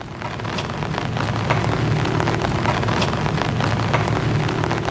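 Typhoon storm sound from a film's soundtrack: heavy rain and wind, a steady rushing hiss full of sharp drop-like ticks over a low rumble, swelling up in the first second.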